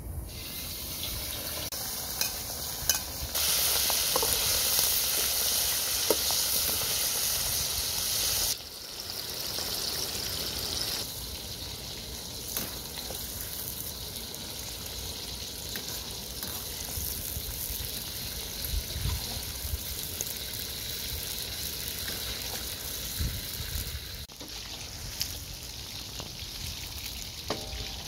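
Chicken gizzards frying in a pan, a steady sizzle that swells for about five seconds a few seconds in and then settles lower, with a few scattered clicks.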